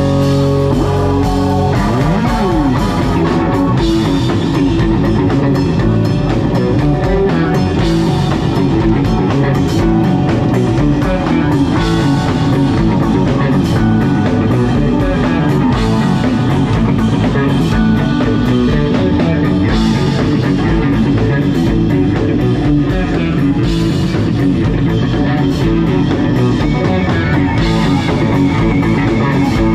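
Live band playing an instrumental passage: electric guitar over electric bass, keyboards and drum kit, steady and loud.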